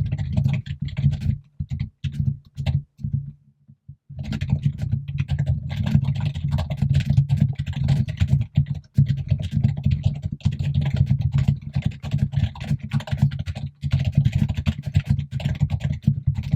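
Fast typing on a computer keyboard, the keystrokes with a deep thud. A few short bursts come first, then unbroken rapid typing from about four seconds in.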